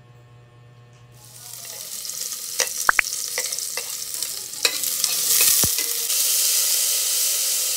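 Chopped garlic and onions frying in a stainless steel pot, starting about a second in. A metal ladle clinks several times against the plate and pot as the garlic is scraped in and stirred. The sizzle grows louder from about five seconds in.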